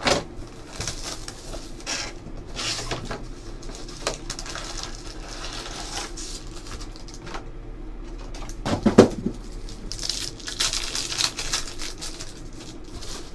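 Plastic wrap and cardboard rustling and clicking as a trading-card box is unwrapped and opened and its packs are handled. A foil card pack crinkles as it is torn open near the end. About nine seconds in comes a short low sound, the loudest in the stretch.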